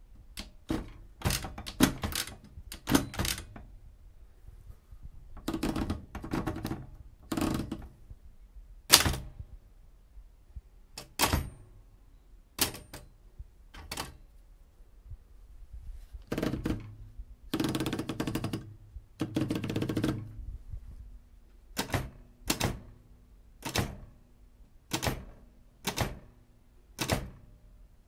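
Typewriter keys striking in irregular runs of clacks, with two longer drawn-out mechanical noises a little past the middle. Near the end the strikes fall into an even beat, a little more than one a second.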